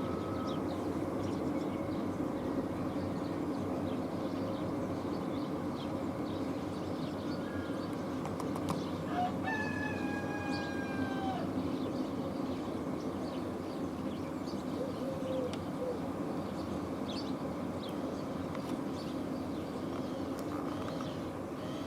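Steady rumble of a freight train passing. About nine seconds in, one pitched call lasting roughly two seconds, sliding slightly down in pitch.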